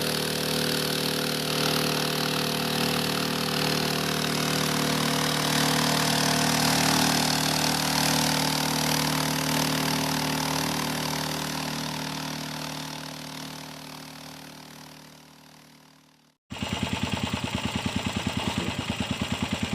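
A steady drone with held tones fades out and stops; then, after a sudden cut, a small engine runs with a fast, even pulse. The engine is the miners' homemade gold-mining machine.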